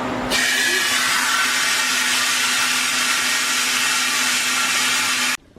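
Loud, steady hiss of air rushing into a home freeze dryer's vacuum chamber as the drain valve is pulled open, releasing the vacuum at the end of the drying cycle. It starts about a third of a second in, over the machine's steady low hum.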